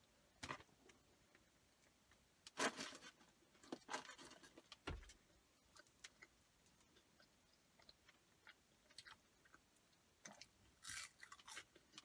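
A person chewing and biting into a cheeseburger and curly fries, in short soft bursts of mouth sounds and light crunch, with a dull knock about five seconds in.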